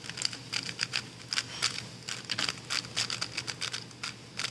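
Rapid clicking and clacking of a Moyu WRM 2019 3x3 speed cube being turned fast, many quick turns in a row with short pauses, stopping near the end.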